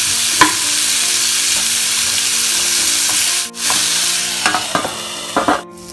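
Raw mango pieces sizzling in hot oil with a spiced tempering in a steel pan, stirred with a wooden spatula, with a sharp knock of the spatula about half a second in. The sizzle drops out very briefly twice and is quieter near the end.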